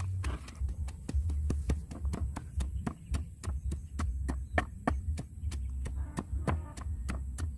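Long wooden pestle pounding in a stone mortar, steady knocks about three a second, over a low rumble.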